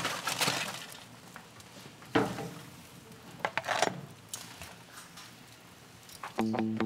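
Metal tongs clinking and scraping against foil and a grill grate as a roasted lobster is lifted off, with a faint sizzle underneath. Plucked guitar music comes in near the end.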